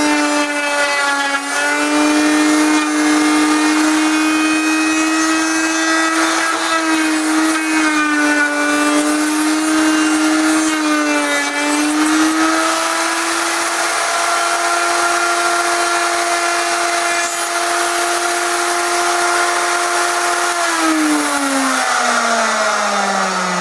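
Electric router in a homemade router table running at full speed with a steady high whine, its pitch sagging slightly now and then as it cuts grooves in wood. About three seconds before the end it is switched off and its pitch slides down as it spins down.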